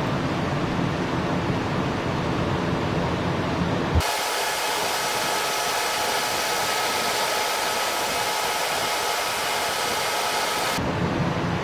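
Boeing 737's jet engines running as the airliner taxis. A low rumble switches abruptly with a click about four seconds in to a hissing whine with several steady high tones, then switches back to the low rumble near the end.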